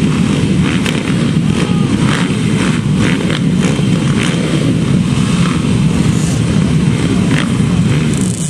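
Dirt bikes running on a motocross track, a steady low mass of engine noise with no single bike standing out.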